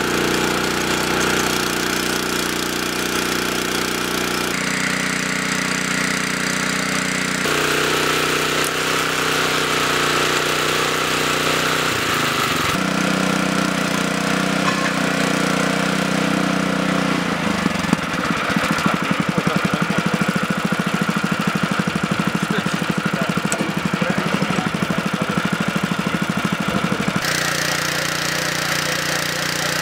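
Small petrol engine of a portable rail drilling machine running steadily, its sound changing abruptly several times between shots. Its pitch dips briefly near the middle, and in the later part it runs with a fast, even pulsing.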